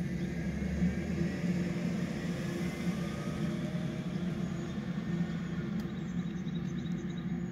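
Amtrak passenger train approaching at low speed, its diesel locomotive's engine running steadily.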